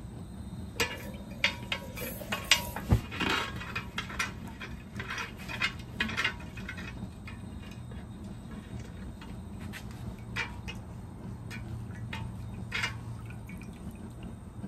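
Red-hot 8670 high-carbon steel blade quenched in a quench-oil tank: the oil crackles and pops in quick bursts over the first several seconds, with a few scattered pops later, over a steady low hum.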